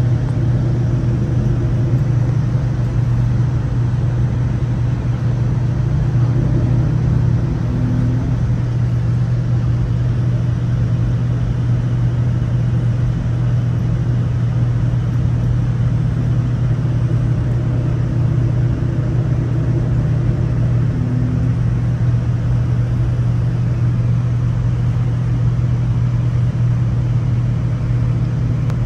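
Steady cabin noise inside a Korean Air jet airliner on approach: a constant low drone from the engines under an even hiss of airflow.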